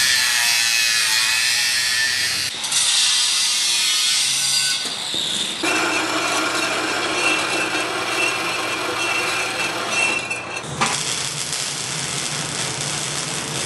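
Angle grinder cutting through heavy woven-wire mesh, a dense high-pitched grinding that stops abruptly after a couple of seconds. Other shop metalwork noise follows, and from about eleven seconds in the steady hiss of electric arc welding on steel tubing over a low hum.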